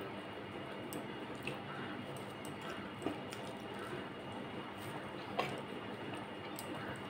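Eating sounds: fingers squishing rice and fish curry in a steel plate, then chewing a mouthful with crunchy chanachur. A few short sharp clicks, the loudest about five seconds in.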